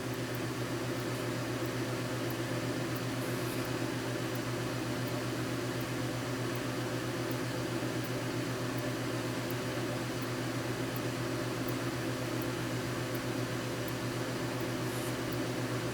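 Steady electrical hum with fan-like hiss: a low droning tone with its overtones, unchanging throughout, with faint regular ticking above it.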